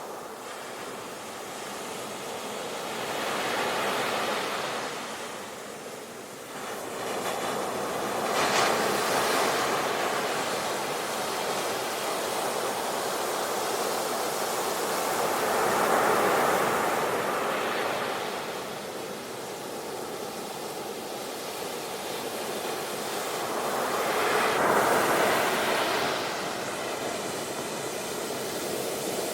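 Ocean waves breaking and washing on a shore, a steady rush that swells and falls back as each wave comes in, with stronger breakers about 8 s, 16 s and 25 s in.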